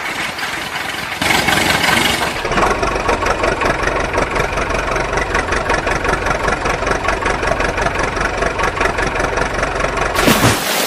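An engine idling steadily with an even pulse: an engine sound effect laid over toy vehicles that have no engines of their own. It starts about a second in, and a brief loud noisy burst comes near the end.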